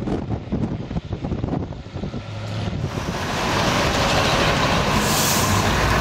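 Wind buffeting the microphone over a low engine and road rumble as the open classic car rolls along. About three seconds in, this gives way to a steadier, louder traffic noise.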